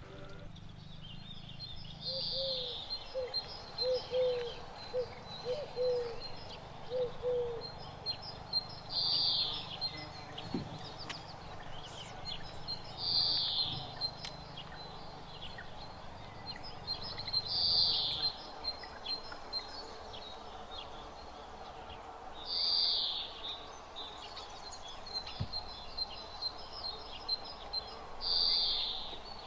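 Outdoor ambience with a bird repeating a short, high, falling call about every four to five seconds, between runs of quick ticking notes. A series of short lower chirps comes in the first several seconds.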